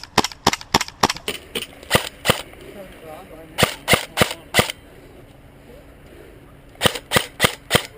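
Airsoft electric M4 rifle firing sharp single shots in quick strings, about three a second: some nine shots in the first two and a half seconds, four more around the middle, and another four near the end.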